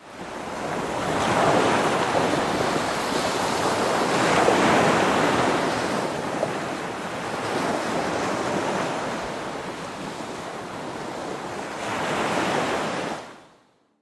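Sea surf washing onto a beach, swelling and subsiding every three to four seconds, then fading out near the end.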